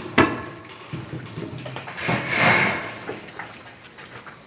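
A sharp knock on a sheet-metal cable tray with a brief metallic ring, then a scraping, shuffling sound of the tray being handled about two seconds in.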